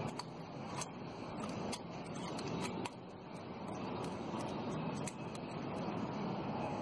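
Irregular light clicks and scrapes of a steel feeler-gauge blade being worked in and out of the valve clearance between a motorcycle engine's rocker adjusting screw and valve stem, over steady background noise. This is the clearance check of the not-yet-adjusted exhaust valve on a Honda Biz 125's single-cylinder engine.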